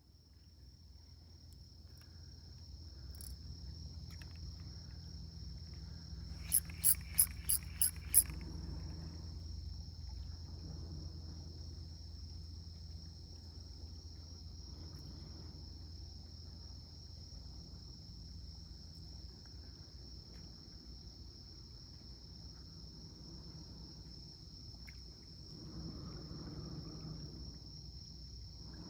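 Insects chirring in one steady high-pitched drone over the low rumble of strong wind on the microphone. A quick run of six sharp clicks comes about seven seconds in.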